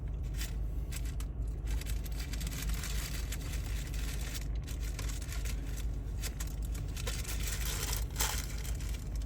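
Car cabin noise while driving: a steady low road-and-engine rumble under a shifting hiss with light crackling.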